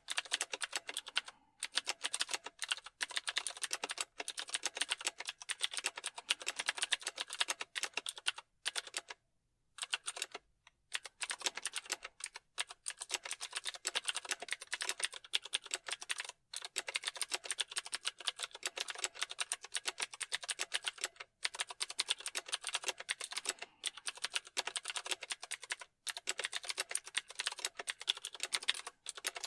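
Fast typing on a computer keyboard: a rapid, continuous patter of key clicks that breaks off briefly a few times, longest for about a second a third of the way in.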